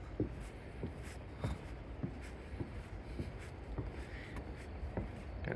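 Faint footsteps of a person walking a nature trail, a soft step about every half second, over a low rumble.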